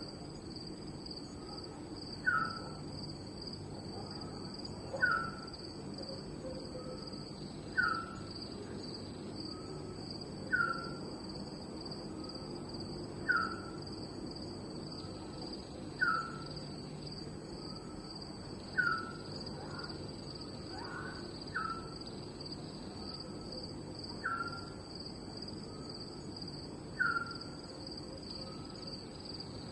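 Night chorus of crickets, a steady high trill throughout, with a short falling call from another night animal repeating evenly about every three seconds, each followed by a softer lower note.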